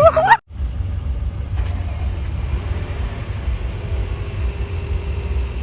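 Steady low rumble of a moving vehicle, starting just after a voice with music cuts off about half a second in.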